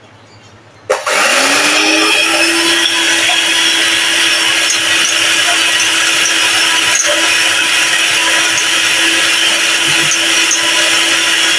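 Electric hand mixer switched on about a second in, its motor quickly spinning up to a steady speed as the beaters whisk raw eggs in a glass bowl.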